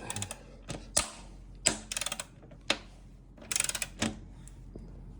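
Hand ratchet wrench clicking in three short runs, with single sharp clicks and knocks between them, as the motorcycle's rear axle is being loosened.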